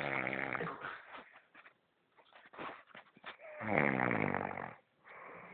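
A sleeping person snoring: two long snores about three and a half seconds apart, the second the louder, then a fainter breath near the end.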